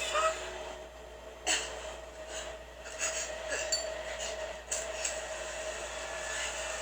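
Quiet dramatic scene audio from a TV episode: a low steady held tone with scattered soft clicks and rustles, a sharper click about one and a half seconds in and another near the end.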